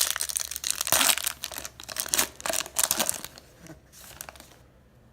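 Wrapper of a 2018 Bowman baseball card pack being torn open and crinkled, a run of loud crackling rips over about three seconds that dies away near the end.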